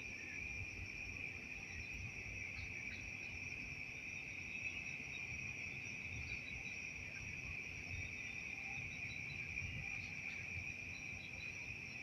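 Crickets trilling steadily in a continuous high-pitched chorus at night, with a low uneven rumble underneath.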